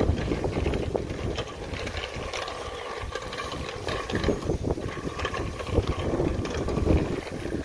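Wind buffeting the microphone: an uneven low rumble with scattered small clicks and knocks.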